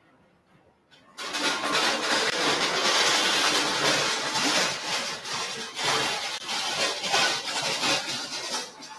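Loud rustling and rubbing on a microphone, as it is handled. It starts abruptly about a second in and flickers unevenly after that.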